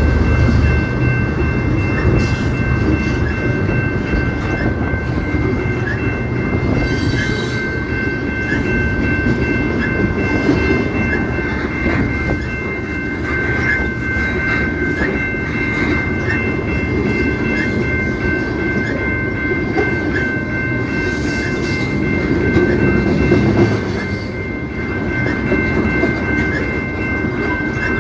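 Canadian Pacific train rolling past with a steady low rumble of its cars and a clickety-clack of wheels over rail joints. A steady high-pitched whine rides over it and eases slightly near the end.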